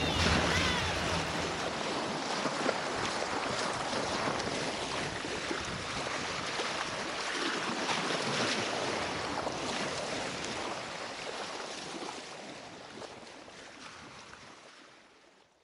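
Sea water rushing and splashing along the hull of a sailboat under sail, with wind noise on the microphone; it fades away near the end.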